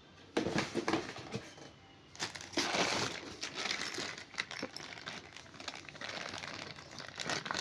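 Packaging crinkling and rustling as pressure-washer accessories are unwrapped and handled. It starts about half a second in, pauses briefly, then goes on in irregular bursts.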